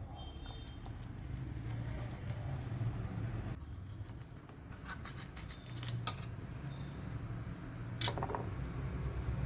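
Knife slicing a thick boneless chicken breast through the middle on a cutting board, with a few sharp clicks of the blade against the board and utensils, over a steady low hum.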